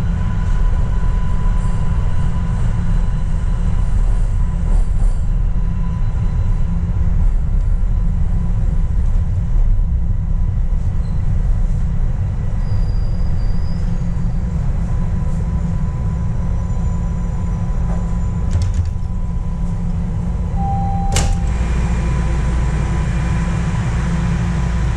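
Steady low rumble of a Toronto subway train on Line 1, heard from inside the car, with a faint steady whine above it. A short beep and a sharp click come near the end, after which the low rumble grows a little stronger.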